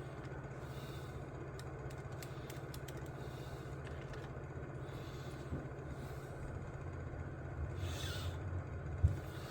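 A steady low hum runs throughout, with faint light clicks. A brief scrape and a sharper knock come near the end.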